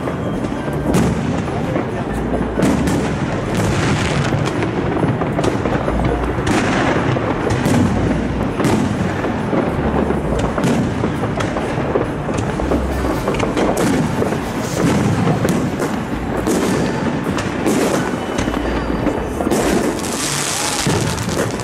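Fireworks display, aerial shells bursting one after another in a rapid, continuous run of bangs and crackles, with music playing underneath.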